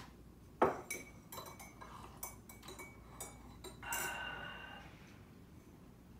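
Ceramic coffee mugs and cups clinking and knocking against each other and on a wooden table: a sharp knock about half a second in, a run of small clinks, then a ringing clink near four seconds in that fades over about a second.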